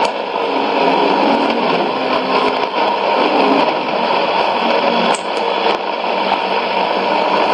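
Long-distance shortwave AM reception on 6100 kHz through the Sony ICF-2001D's speaker: steady hiss and static, with a weak broadcast signal barely showing through the noise. There is a sharp static crackle about five seconds in.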